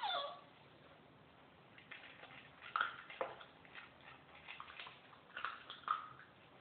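Small hairless dogs eating dry kibble from a plastic bowl: scattered crunches and sharp clicks of kibble and bowl. A short falling squeal at the very start is the loudest sound.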